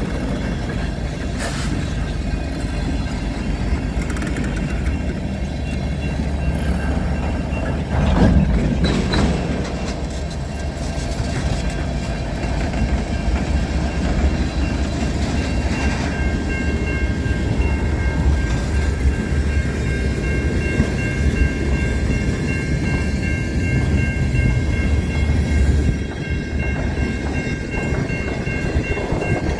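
Freight train cars (covered hoppers and tank cars) rolling past, with a steady low rumble and the clickety-clack of wheels over the rail joints. There is a louder clatter about eight seconds in, and a faint steady high ringing joins about halfway.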